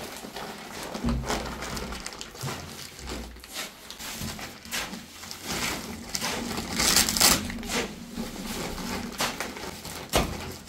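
Irregular crunching and scraping with scattered sharp knocks from hand building work on a stone and tile floor, loudest about seven seconds in.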